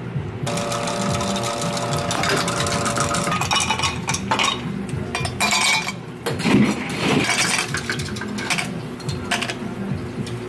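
A small handheld frother whirs steadily for a few seconds in a plastic measuring cup of espresso and syrup. Then ice cubes clink and knock into glass mugs several times.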